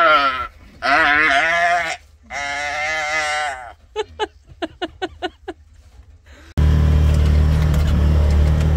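Sheep bleating: three long, wavering bleats, then a quick run of short quavering ones. About two-thirds of the way in, a loud steady engine-like rumble with a low hum starts abruptly.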